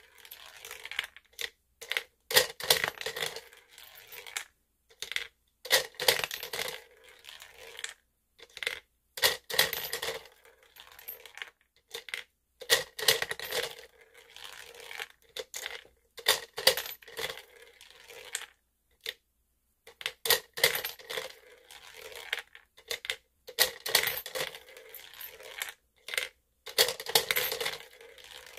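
Toy gumball machine being worked by hand: the plastic lever clicks and balls drop and clatter down its plastic spiral ramp. This comes in repeated bursts of clicking and rattling, about every three seconds.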